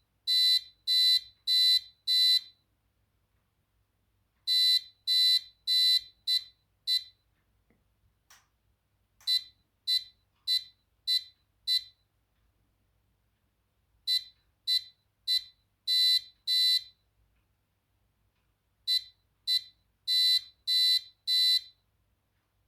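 Arduino-driven beeper sounding Morse code: high-pitched beeps in groups of five, each group a mix of short dots and longer dashes, the five-element pattern of Morse digits spelling out geocache coordinates. The groups are separated by pauses of about two seconds.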